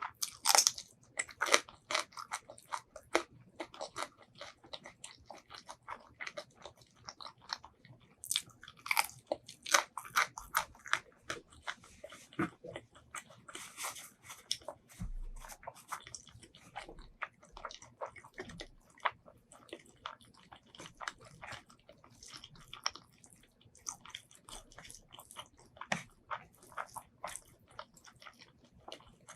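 Close-miked eating: braised pork ribs and white rice being bitten and chewed, a dense irregular run of sharp mouth clicks and crunches.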